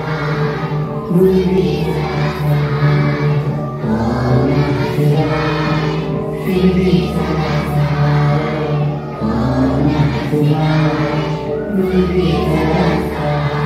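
A group of voices singing a devotional prayer together in unison over a steady musical accompaniment of low held notes that change every few seconds.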